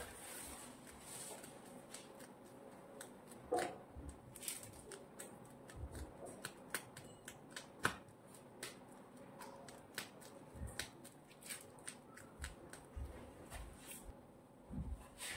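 Scattered soft clicks and a few low taps from handling a plastic piping bag while piping whipped cream onto a cake.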